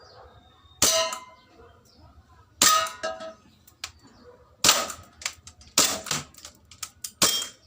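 Airsoft Glock 17 pistol firing five single shots about one to two seconds apart, each a sharp crack with the BB striking the target; the first two ring with a metallic clang from the BBs hitting a tin can.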